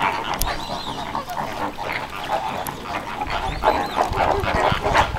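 A flock of flamingos calling together, with many overlapping goose-like honks and a continuous gabble of chatter.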